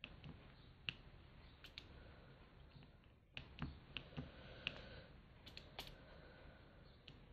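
Faint, scattered light clicks and taps of a diamond painting drill pen picking up square drills from a plastic tray and pressing them onto the sticky canvas.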